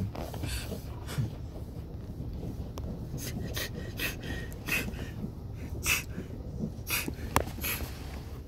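Car wash heard from inside the car's cabin: a steady low rumble with short, irregular swishing hisses of brush strokes and spray against the soaped windows and body.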